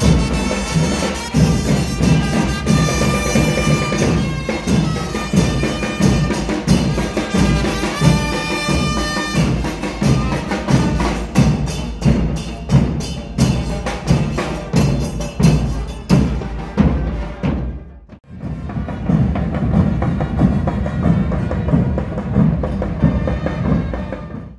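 Brass-and-drum band music: trumpets play a melody over a steady beat of drums. About 18 seconds in there is a brief break, after which the drumming continues without the horns.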